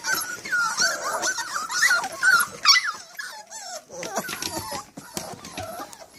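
Newfoundland puppies whining and whimpering: many short, wavering high calls over the first three seconds, then quieter scattered clicks and scuffles.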